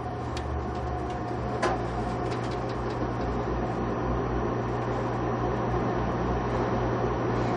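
Steady machinery hum inside a human centrifuge gondola as the centrifuge turns at its low resting speed of about 1.2 G between runs, with a single click about two seconds in.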